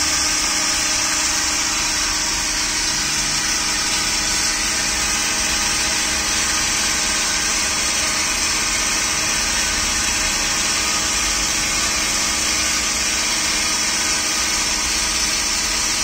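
Small high-speed DC motor of a robot's grass cutter running steadily: a constant whine made of several steady tones.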